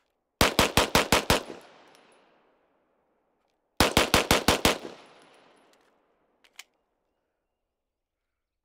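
Pistol fired in two rapid strings of about seven shots each, roughly six or seven shots a second, the strings about three seconds apart. Each string trails off in an echo, and two faint clicks follow a couple of seconds after the second string.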